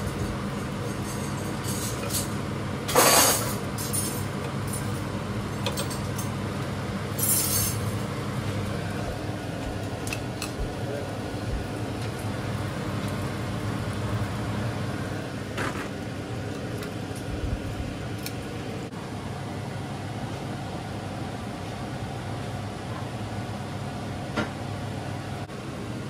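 Metal kitchen tongs clink and tap against a cast-iron griddle pan a few times, the sharpest about three seconds in, over a steady low hum.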